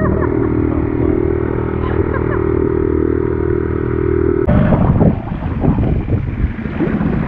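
Small Suzuki outboard motor on an inflatable dinghy, running steadily at speed. About four and a half seconds in, it cuts off abruptly to wind rumbling on the microphone and water splashing.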